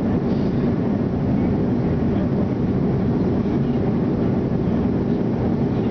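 Jet airliner cabin noise in flight: the steady rumble of the engines and airflow, heard from inside the cabin at a window seat over the wing.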